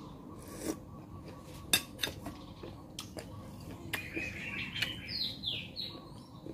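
Sharp clinks and clicks of a metal spoon against a glass soup bowl during a meal, a few scattered strikes with the loudest about two seconds in. Small birds chirp in a short run about four seconds in.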